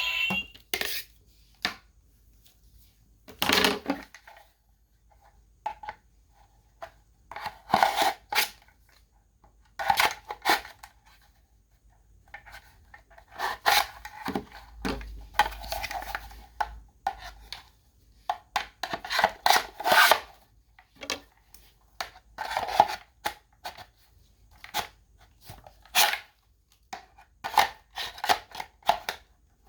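Toy and its packaging being handled during unboxing: irregular bursts of plastic rustling with light clicks and knocks, stopping and starting every second or two.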